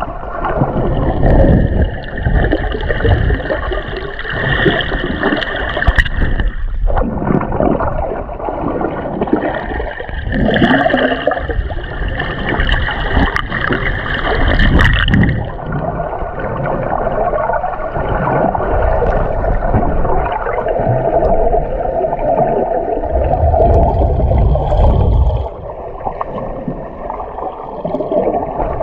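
Muffled sloshing and gurgling of seawater around a submerged camera during snorkeling, in uneven surges.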